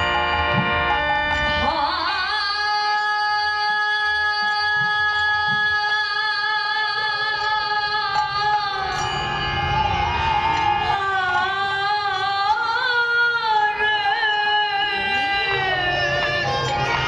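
Devotional kirtan singing: a voice slides up into one long held note that wavers in ornamental turns partway through, over a steady sustained instrumental drone, with a few low drum strokes near the start.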